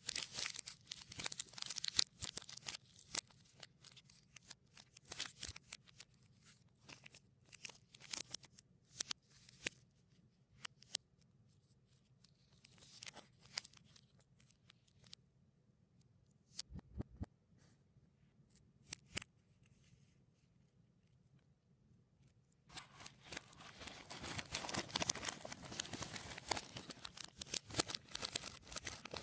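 Plastic candy-bar wrappers crinkling and tearing, played in reverse. A run of sharp crackles and snaps thins out in the middle, then gives way to dense, steady crinkling over the last six seconds or so.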